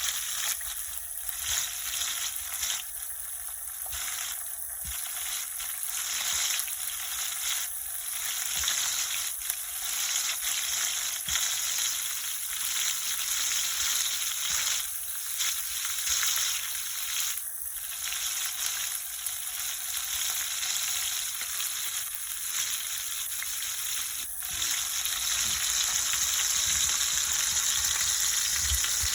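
Whole red snapper frying in hot oil in a pot: a steady sizzle with fine crackling, growing a little louder near the end.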